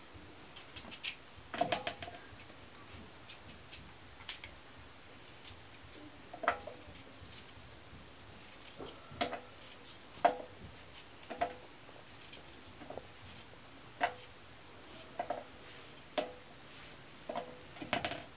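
A small knife peeling and cutting a potato over a metal bowl: irregular short clicks and knocks, about one every second or so, many with a brief metallic ring from the bowl.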